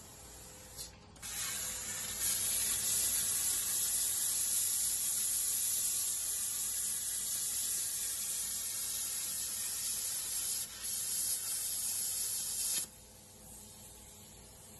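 Plasma cutter cutting through the steel frame of a shed, a steady loud hiss from the arc and its air jet. It starts about a second in, falters briefly near the end, then cuts off about two seconds before the end.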